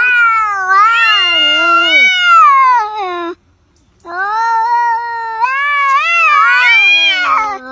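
Cats yowling in a face-off: two long, wavering yowls, each about three seconds, with a short silent gap between them. A lower, steadier yowl starts near the end.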